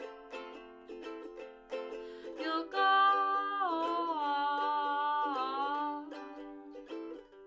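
Ukulele picked and strummed in the song's closing bars, with a wordless sung note held and sliding down for about three seconds in the middle.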